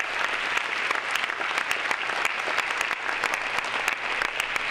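Audience applauding: many hands clapping together in a steady, dense patter that holds throughout.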